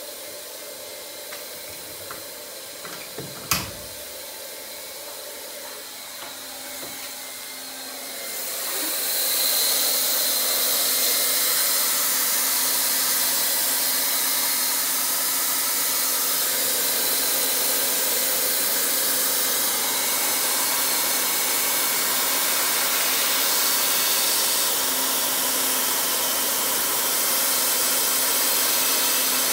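Hot-air plastic welder's blower hissing steadily, growing much louder about 8 seconds in and then holding even: the gun blowing air through its nozzle as it cools down. A sharp click about 3.5 seconds in.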